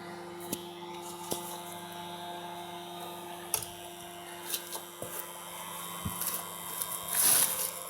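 Homemade arc welder built from two microwave oven transformers humming steadily at mains frequency, with scattered sharp clicks and a short loud burst of crackling hiss near the end.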